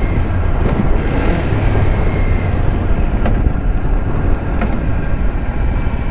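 Kawasaki Ninja 500's parallel-twin engine running steadily while riding, with a heavy, steady rush of wind noise on the helmet microphone.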